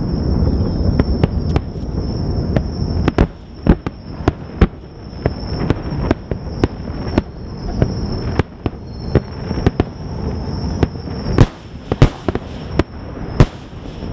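Fireworks shells bursting in quick, irregular succession during a display finale: a dense rolling rumble at first that thins out, then many separate sharp bangs, the loudest ones near the end.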